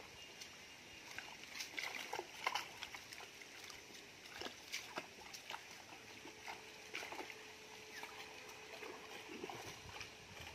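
Pond water splashing and sloshing as men swim and wade while hauling a fishing net, with scattered short splashes throughout.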